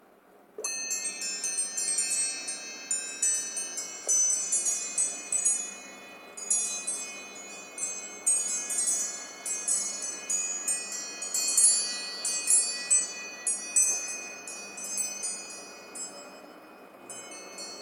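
iPhone ringtone of wind-chime-like tinkling: many high, bell-like tones struck in loose, irregular clusters and left ringing over one another. It starts about half a second in after a brief silence and thins out near the end.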